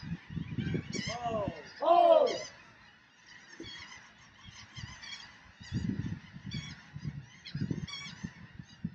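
Birds calling: two loud honking calls about one and two seconds in, with quieter high chirping calls repeating throughout.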